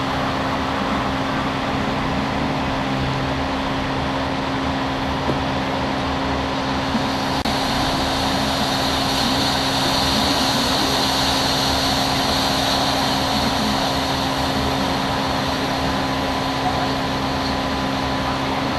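Floodwater rushing along a street in a steady loud wash, with the engines of cars and a van driving through it and their wheels splashing. The hiss of water grows brighter for several seconds in the middle.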